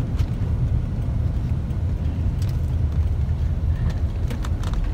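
Steady low rumble of a moving passenger van's engine and road noise, heard from inside the cabin, with a few faint ticks near the end.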